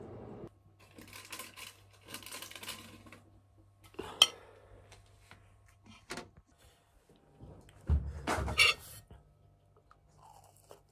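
A ceramic plate and a metal fork handled on a table: soft rustling, then sharp clinks of the fork against the plate about four and six seconds in. A heavier knock and clatter of the plate comes about eight seconds in.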